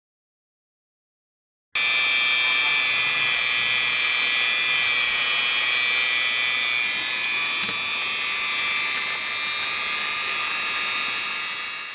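Dremel rotary tool running at a steady speed with a high-pitched whine, spinning a length of plastic 3D-printer filament to friction-weld a plastic part. It starts abruptly about two seconds in and fades out at the end.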